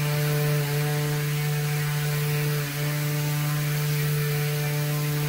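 Palm sheet sander fitted with an Ekasilk Plus foam abrasive pad, running at steady speed while sanding the contoured profile of a wooden molding: a constant motor hum with the hiss of abrasive on wood.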